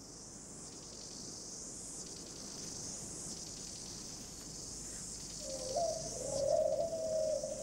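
Insects chirring steadily in a high, even drone, with a low wavering call rising over it for the last two seconds.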